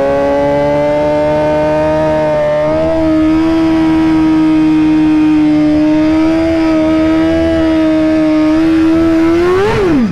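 Suzuki GSX-R1000's inline-four engine held at steady high revs, then revved higher and let fall sharply near the end.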